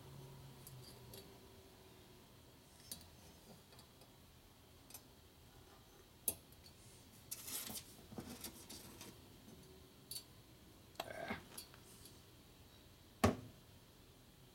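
Scattered small metallic clicks and clinks of valve springs, collars and keepers being handled and fitted on a Sportster Ironhead cylinder head. The loudest is a single sharp click near the end.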